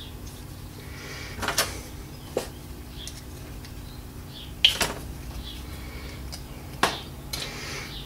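A few light clicks and knocks as a PBR drum brake wheel cylinder is handled and its dust caps are worked off with fingers and a thin pick. The loudest click comes about halfway through, over a faint steady hum.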